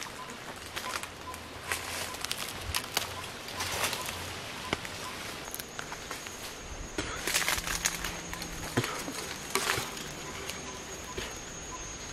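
Irregular rustling and crackling of dry leaves and twigs in forest undergrowth, busiest about seven to ten seconds in. A thin steady high tone comes in about halfway through.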